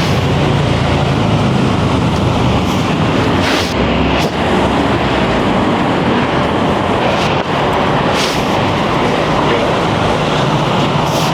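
Steady, loud rumble and hiss of heavy traffic on a busy city road, with a few brief sharper noises scattered through it.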